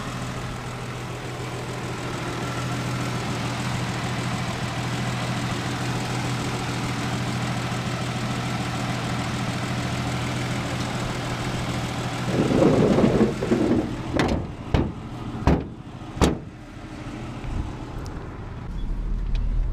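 1974 Plymouth Valiant's engine idling steadily, warming up from a cold start after long storage. About two-thirds of the way through come a rustle and several sharp knocks and thumps, louder than the engine, as the hood is brought down and shut.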